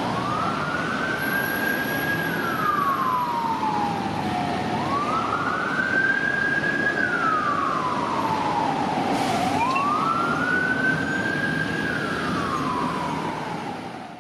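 An emergency vehicle's siren wailing, three slow cycles, each one rising, holding high and then sliding back down, over steady city traffic noise. It fades out at the very end.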